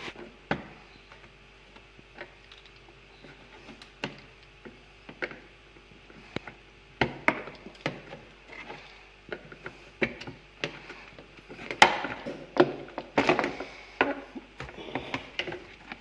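Hard plastic cover panel of a Whirlpool dishwasher's base being prised off its clips: a series of sharp plastic clicks and knocks, busiest in the second half.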